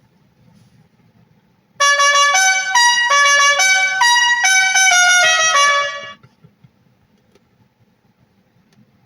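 A brass-like novelty horn tune of about a dozen quick notes, played loudly through a Tesla's external speaker. It starts about two seconds in and stops about six seconds in.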